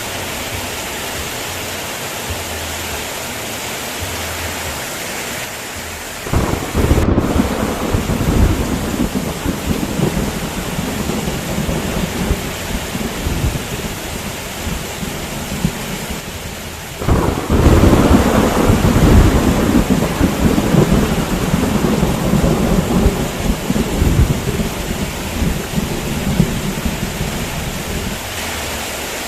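Steady heavy rain hissing, with two long rolls of thunder: the first breaks in about six seconds in and the second about seventeen seconds in, each rumbling for roughly ten seconds before fading back into the rain.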